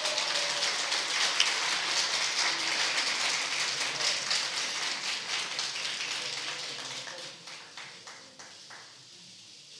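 Audience applauding, a dense patter of many hands clapping that thins to a few scattered claps and dies away near the end.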